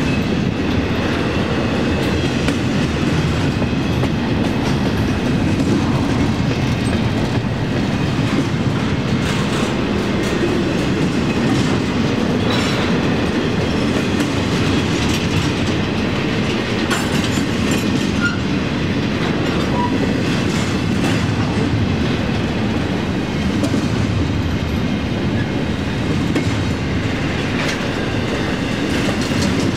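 Union Pacific intermodal freight train's cars rolling past, a steady rumble of steel wheels on rail with irregular clicks from the wheels crossing rail joints.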